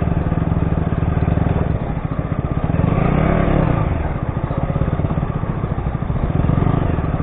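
KTM 200 Duke's single-cylinder engine running at low road speed, the note rising as the throttle opens a little about three seconds in and again near the end.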